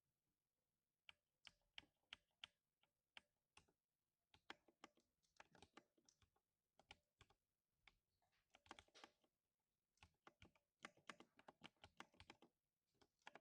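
Faint typing on a lubed 60% mechanical keyboard: keystroke thocks in uneven bursts with short pauses.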